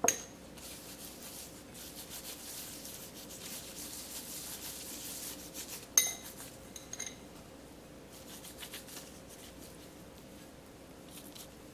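A metal spoon clinks against a porcelain bowl. Then come several seconds of plastic-gloved fingers rubbing sauce over a block of tofu. A second sharp spoon-on-bowl clink comes about six seconds in, a lighter one just after, and then fainter rubbing and handling.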